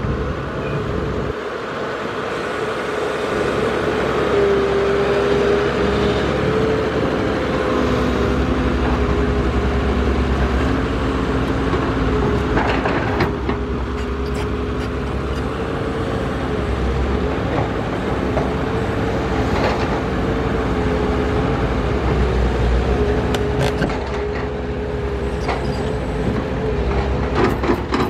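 Diesel crawler excavator running under load, with a steady hydraulic whine that drifts slightly in pitch as the boom and bucket move. A few brief knocks of the bucket against the dirt.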